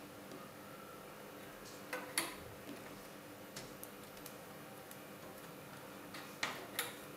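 A few faint, sharp clicks and taps as rubber bands are stretched and snapped onto the clear plastic pegs of a Rainbow Loom, the clearest about two seconds in and a pair near the end, over low room hiss.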